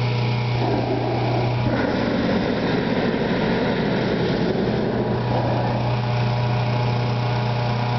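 A cloud hopper balloon's propane burner firing in a roaring blast of about five seconds, starting about half a second in, over a steady engine hum.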